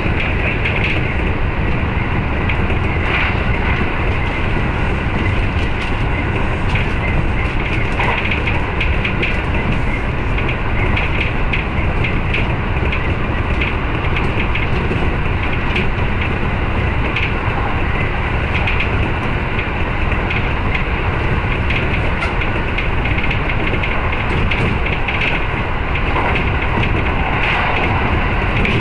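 Kintetsu 8600 series electric train running at speed: a steady rumble of wheels on rail, with scattered sharp clicks and knocks from the track.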